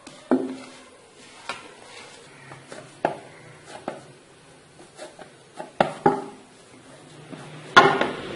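Hands kneading maize-flour dough in a dish, with irregular clicks and knocks against the dish as the dough is pressed and turned, and a louder knock near the end.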